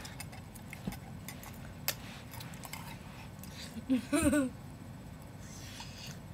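Close-up eating sounds of instant ramen: a few faint, scattered clicks and taps, then a short hummed vocal sound about four seconds in.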